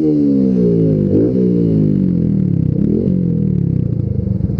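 Small single-cylinder motorcycle engine peaking in revs and then winding down as the bike slows, with two short rises in pitch, about a second in and about three seconds in.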